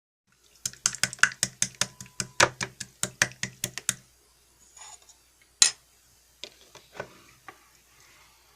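A quick run of sharp taps or clicks, about five a second, for some three seconds, then a few scattered taps.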